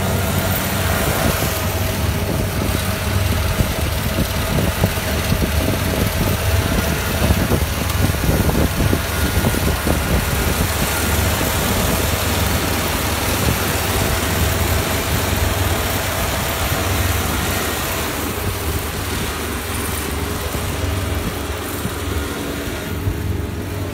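Kubota Pro588 combine harvester running with a steady engine hum and an even clatter of machinery, easing slightly near the end.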